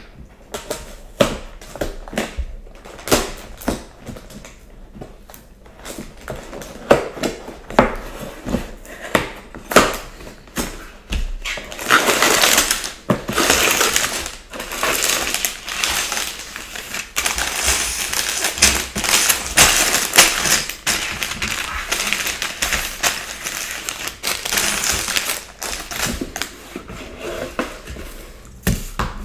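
A LEGO set's cardboard box being opened, with scattered clicks and taps of the flaps. From about twelve seconds in, sealed plastic bags of bricks crinkle and rattle more densely and loudly as they are taken out and laid on a table.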